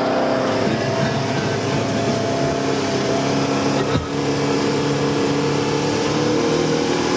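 Engine of an open-sided side-by-side utility vehicle running steadily while driving along a road, with wind and tyre noise. A single short click about four seconds in.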